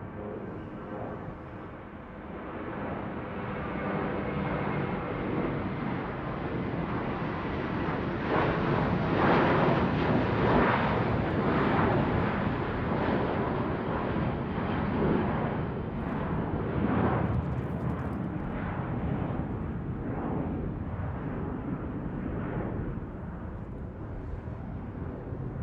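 Airplane flying overhead: a rumbling roar that swells over the first several seconds, peaks around the middle, then eases off slowly.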